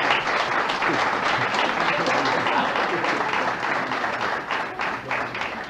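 An audience applauding, a dense clatter of many hands that holds steady and begins to fade near the end.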